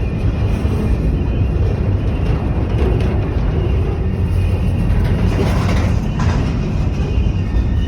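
Steady low rumble of vehicle noise, with background music underneath.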